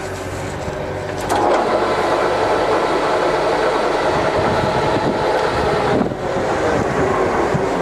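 Heavy-duty lathe's headstock gearing running the spindle at 380 rpm, a steady loud mechanical whirr with gear whine. It gets louder about a second in as the spindle comes up to speed.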